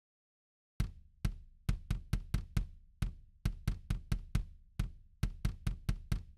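Kick drum samples from the Slate Trigger plug-in playing back solo, fired from a click track rendered by Massey DRT. Starting just under a second in, a busy rock kick pattern of sharp hits, up to about four or five a second, each a short deep thud.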